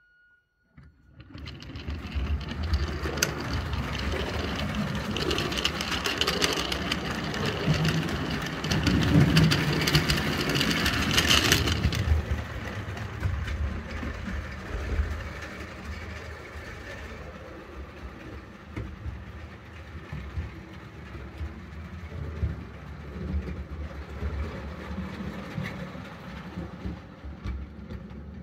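A Roundhouse 0-6-0 battery-electric 16mm-scale model locomotive runs its train of wagons round the track, heard from a wagon riding in the train. The wheels rumble and click on the rails along with the motor, whose speed controller comes from a radio-control car and is noisy. The sound starts suddenly about a second in and is loudest for the first dozen seconds, then goes on more quietly.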